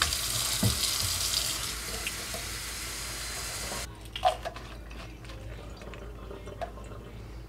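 Kitchen faucet running water into a stainless steel sink, shut off abruptly about four seconds in. A few light knocks follow as a plastic bottle's cap is handled.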